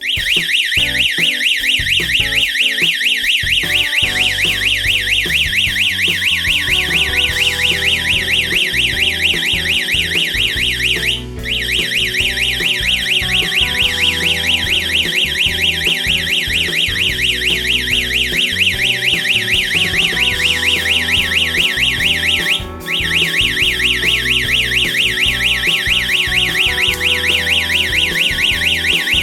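Electronic alarm siren of a home security alarm system sounding a loud, fast, high-pitched warble, cutting out briefly twice and restarting, in cycles about eleven seconds long. Faint background music runs underneath.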